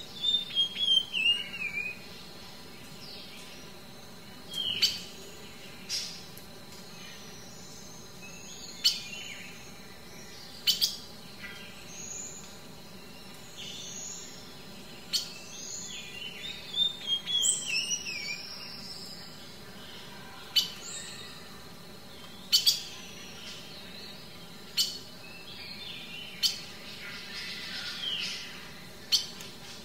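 Wild birds calling: scattered short chirps and sharp chip notes, with a couple of falling twittering phrases, one right at the start and another about halfway through.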